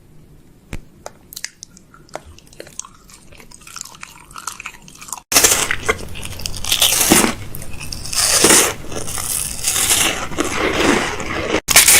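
Food packaging and plastic containers being handled while a fridge is restocked: faint clicks and taps, then from about five seconds in, loud crunching and rustling that swells and fades, with a sudden break near the end.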